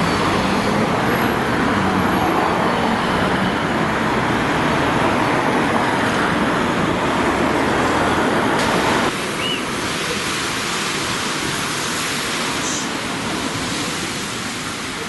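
Steady road-traffic noise from vehicles of an emergency-service convoy driving past, with no siren sounding. About nine seconds in, it cuts abruptly to a quieter traffic noise.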